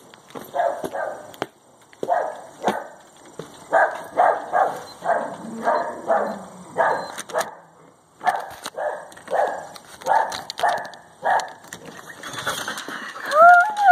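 Husky mix barking over and over, about two woofs a second with short breaks, then near the end breaking into a long, wavering howl that rises in pitch.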